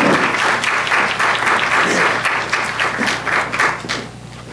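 Audience applauding to welcome a speaker, the clapping thinning and dying away about four seconds in.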